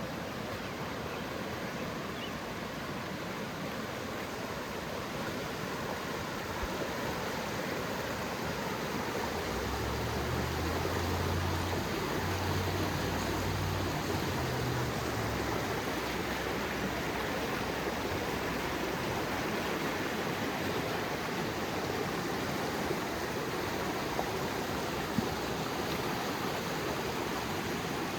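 Creek water rushing steadily, a little louder through the middle. A low rumble comes and goes about a third of the way in.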